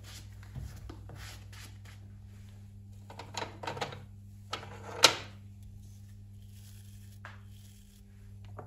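Wooden-handled shoe brushes knocking and clattering against each other and the shelf as a hand rummages among them: a cluster of knocks a few seconds in, then one sharp, loud knock about halfway through and a few lighter ones after. A steady low hum runs underneath.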